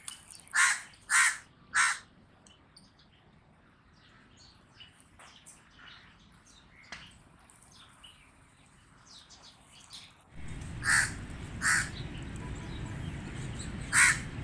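Common raven calling: three loud, harsh calls in quick succession, then a run of fainter calls. About ten seconds in, a steady low background rumble comes in under two more calls, with another pair near the end.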